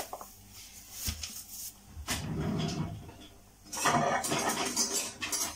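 Knocks and rattling of metal kitchenware as a lower cupboard is rummaged through for a sieve, with a louder clatter over the last second and a half.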